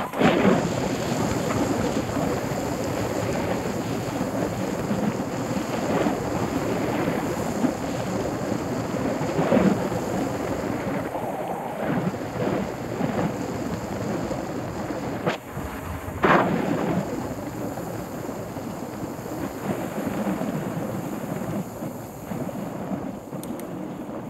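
Wind rushing over the microphone of a handlebar-mounted camera on a mountain bike riding a dirt road, with the tyres rumbling over the ground and a few thumps as the bike hits bumps.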